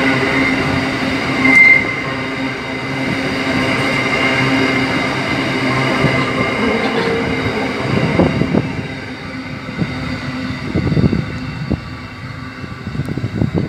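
Empty coal hopper wagons rolling past on steel wheels, with a high wheel squeal about one and a half seconds in, the loudest moment. In the second half the wheels clatter over rail joints in groups of clacks as the last wagons pass and the sound fades away.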